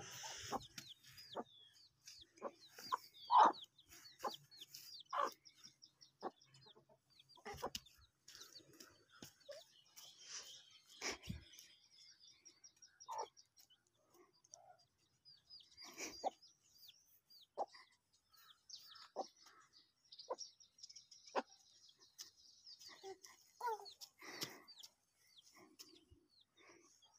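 Chicken clucking in short, scattered calls every second or two, with small birds chirping faintly in the background.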